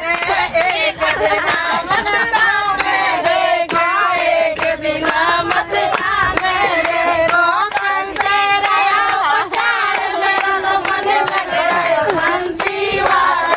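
A group of women singing a song together, with hand clapping keeping time.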